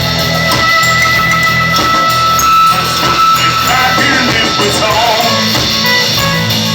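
Live rock band playing an instrumental passage: guitar over bass and drums, with a long held, wavering high note for the first four seconds or so.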